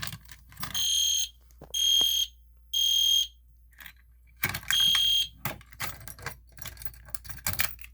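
EST Genesis electronic fire alarm horn sounding the temporal-3 evacuation pattern: three high-pitched beeps, a pause, then a fourth beep starting the next round before it stops. Clicking and rattling follow.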